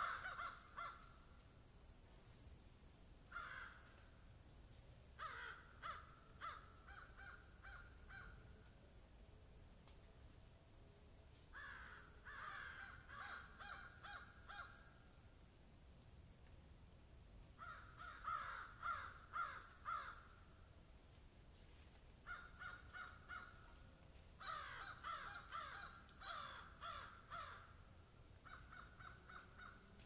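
Crows cawing in bouts of several quick caws, each bout lasting a second or two, with pauses of a few seconds between them.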